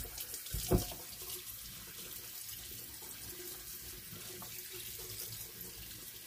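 Thick tomato sauce being shaken out of a glass jar over pasta shells in a foil pan, with a sharp knock about a second in and a few small clicks, over a steady low watery hiss.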